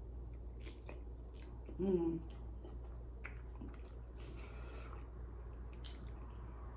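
Close-up mukbang eating sounds: wet chewing, lip smacks and mouth clicks while eating sauced seafood boil, with a short voiced sound about two seconds in and a brief slurp-like hiss past the middle.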